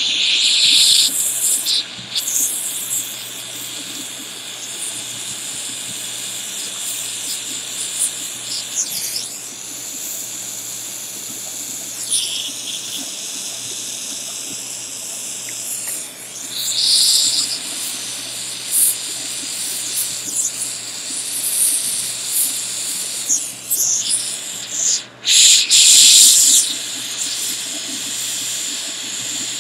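Jeweler's handheld soldering torch hissing steadily as it heats a sterling silver pendant to flow solder onto its prongs, swelling louder in brief surges a few times.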